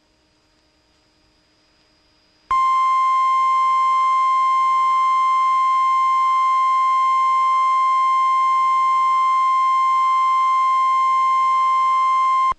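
NOAA Weather Radio 1050 Hz warning alarm tone: one steady, loud electronic tone that starts about two and a half seconds in, holds for about ten seconds and cuts off abruptly. It is the attention signal announcing a severe thunderstorm warning broadcast.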